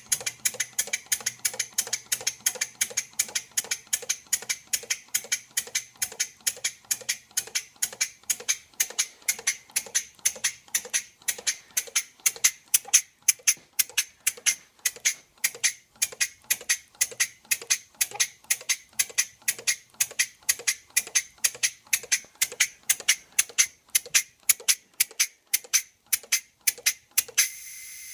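Homemade wobbler steam engine idling slowly, its exhaust giving an even run of short sharp puffs, about three a second. Near the end the puffs stop for about a second while a steady hiss runs.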